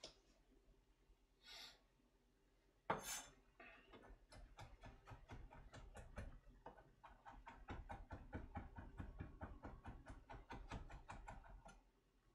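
A kitchen knife chopping imitation crab sticks on a cutting board. A sharp knock comes about three seconds in, then quick, steady chopping strokes, several a second, stopping just before the end.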